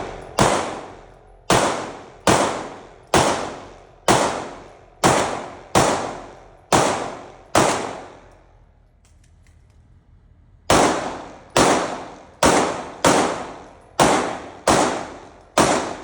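Rapid string of 9mm Glock 19X pistol shots, each with a short echoing tail. Nine shots come at about one a second, then a pause of about three seconds with a few faint clicks, then eight more shots at the same pace.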